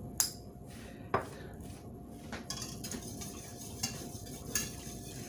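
Wire whisk stirring a cream sauce in a stainless-steel saucepan, the metal clicking against the pan a handful of times, spread out.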